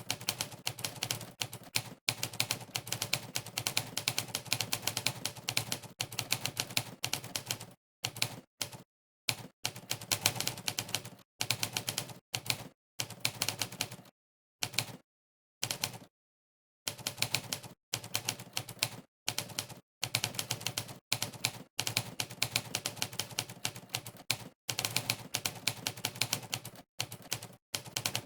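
Typewriter keystroke sound effect, played by a typing-test website for each key pressed, clacking in quick runs of keystrokes broken by short pauses of dead silence.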